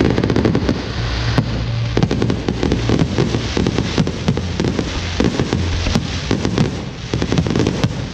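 Fireworks going off in a dense, rapid barrage of bangs and crackles.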